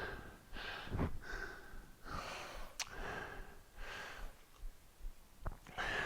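A man breathing hard and rhythmically from exertion, quick puffs roughly every second, with a couple of brief clicks.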